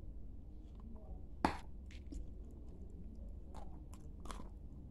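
A chunk of edible clay bitten off with one sharp crack about a second and a half in, then several softer crunches as it is chewed.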